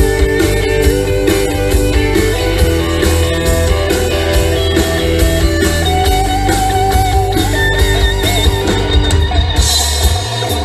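Live country-rock band playing an instrumental section with no vocals: electric guitars over bass guitar and a drum kit keeping a steady beat, with long held, bending guitar notes in the middle. Near the end a cymbal-like wash comes in and the bass drops out.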